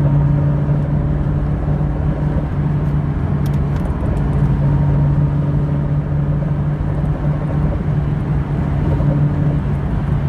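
Honda S2000 at about 70-80 mph under load, with a steady drone from the rear wheel over road and engine noise: a constant low hum with a fainter tone above it. The wheel bearing has already been replaced, so a worn bearing is not the cause.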